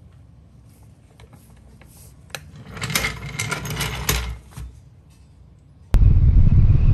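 A burst of rapid clicking and rattling for about two seconds, from the workshop work around the motorcycle on its floor jack. Near the end it cuts suddenly to loud wind on the microphone over a Honda Rebel 1100 riding down the road.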